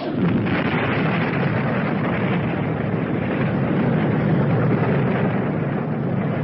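Radio-drama sound effect of a magical blast: a sudden, loud rush of explosion-like noise, heavy in the low end, that holds for about six seconds and eases off at the end.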